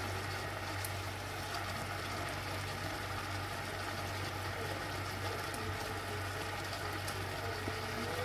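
Masala gravy simmering and sizzling around a whole chicken in an iron kadai, a steady fine crackle over a low steady hum, with a few faint ticks of tongs against the pan.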